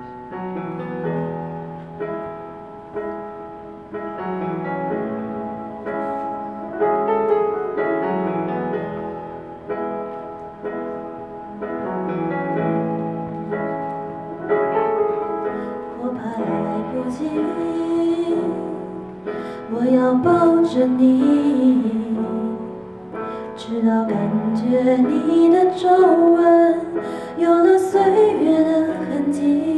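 Karaoke backing track of a slow piano ballad. The piano plays the introduction alone, and about halfway through a woman starts singing into a microphone over it, louder toward the end.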